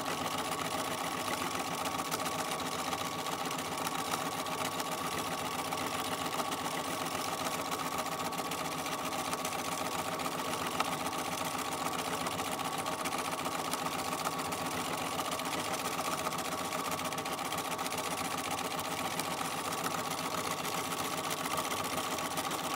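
Domestic sewing machine running steadily at speed, free-motion quilting through a padded mini quilt, with fast, even needle strokes and a steady motor whine.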